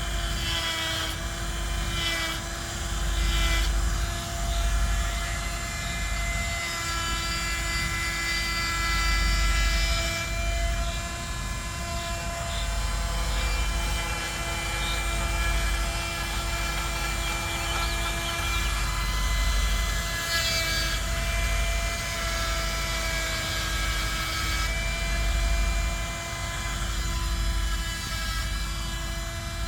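Chainsaw running at high, fairly steady revs while carving into a wooden log, the pitch dipping briefly every few seconds as the cut changes.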